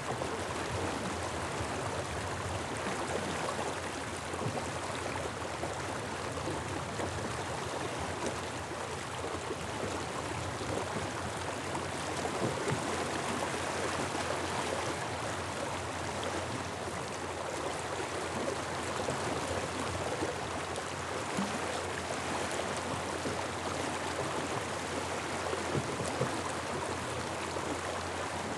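Small river flowing past, a steady rush of water running over shallow riffles.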